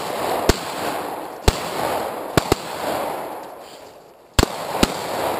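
Handgun shots, about six, uneven and partly in quick pairs, each followed by a long echo rolling back off the surroundings.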